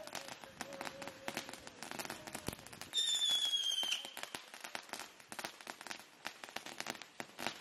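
Fireworks crackling and popping in a rapid, dense stream. About three seconds in, a whistling firework gives one loud high whistle lasting about a second, sinking slightly in pitch.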